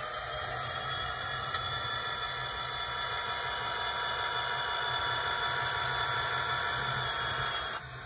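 Digitrax SDXH166D sound decoder playing a diesel locomotive prime-mover sound through its small speaker: a steady, hissy engine drone that dips slightly near the end.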